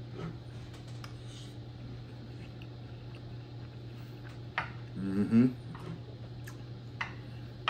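Eating sounds: a spoon and chopsticks giving a few light clicks against a plate of fried rice, over a steady low background hum, with a short vocal sound from the eater about five seconds in.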